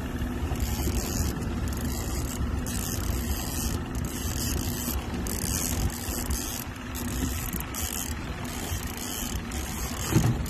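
Boat motor running steadily as the boat backs toward a hooked fish. A high hiss cuts in and out over it every second or so.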